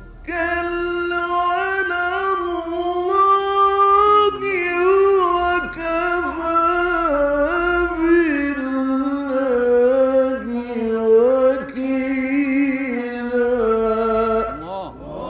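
Male Quran reciter chanting in the ornamented mujawwad style: one long held melodic line with slow melismatic turns that gradually sinks in pitch, breaking off about a second before the end. A low hum runs under it, typical of an old live recording.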